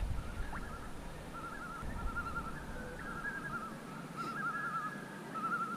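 Common loons giving their wavering tremolo calls, several quavering bouts one after another, some overlapping.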